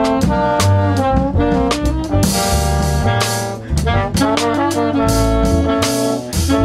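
Jazz quartet playing: saxophone and trombone on melody lines over double bass and drum kit, with repeated cymbal strokes.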